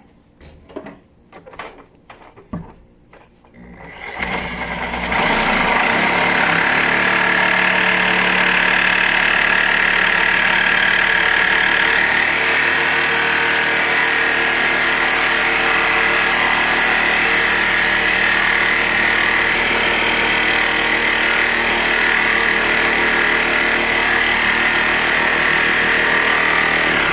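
A few knocks and clicks, then about four seconds in a handheld power tool starts and runs steadily under load for the rest of the time, being worked into a locked door to force it open.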